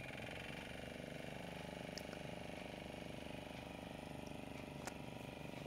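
A fishing boat's engine running steadily at a distance: a faint, even hum with a fast regular pulse.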